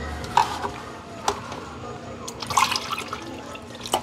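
A drink being poured into a glass, with liquid splashing and a few light clinks and knocks.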